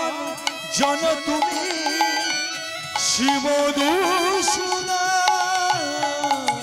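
Bengali kirtan music: a wavering, ornamented melody with heavy vibrato carried over hand-drum strokes and percussion, with two bright cymbal-like crashes in the middle.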